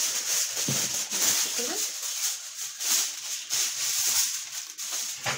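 Aluminium foil crinkling and rustling in a run of short surges as a sheet of it is handled over a baking dish.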